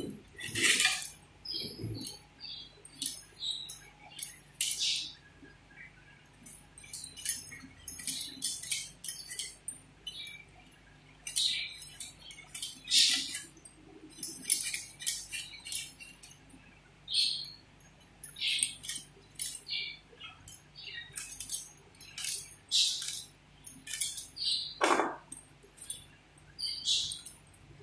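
Pumpkin and other vegetables being sliced by hand on a bonti, an upright curved floor blade: short crisp cutting and scraping sounds at an uneven pace, about one every second or two, with light clinks of glass bangles.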